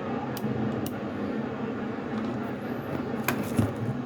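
CB radio receiver hissing static from its speaker, with faint warbling skip signals under it and a few sharp clicks, about three in all.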